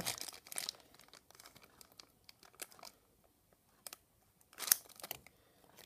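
Clear plastic packaging bag crinkling and rustling in the hands in short fits, with the loudest crackle about four and a half seconds in.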